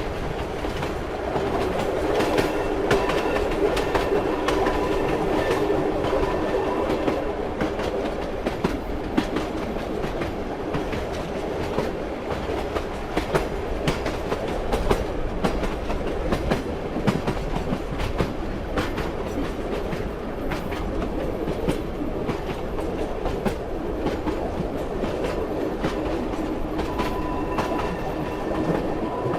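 Train running along the track: steady rumble of a railway carriage with the rhythmic clickety-clack of its wheels over the rail joints. A faint high tone comes in for a few seconds early on and again near the end.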